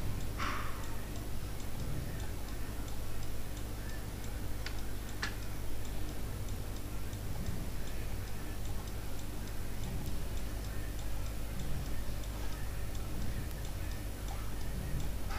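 Faint, repeated clicks of a computer mouse over a steady low hum, with a couple of sharper clicks about five seconds in.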